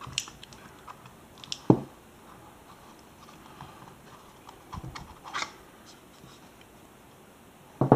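Plastic clicks, scrapes and knocks of a cordless tool battery's cell pack being worked out of its plastic housing and handled, with one sharp knock about two seconds in and another near the end.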